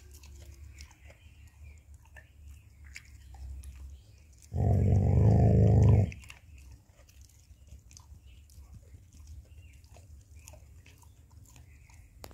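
A dog gnawing a bone, with small scattered crunches and clicks of teeth on bone. About four and a half seconds in comes a loud, low growl lasting about a second and a half: the dog guarding its bone.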